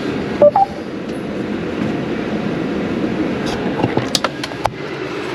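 Steady rumbling noise inside a Mercedes Sprinter van's cabin. About half a second in there is a short rising two-note electronic tone, and around four seconds a few sharp clicks.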